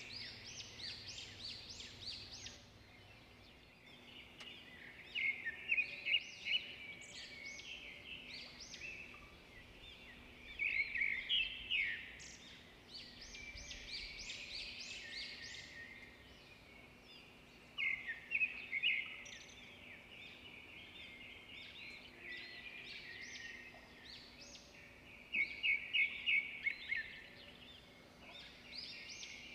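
Birds chirping and twittering in repeated bursts of quick high trills a few seconds apart, over a faint steady hum.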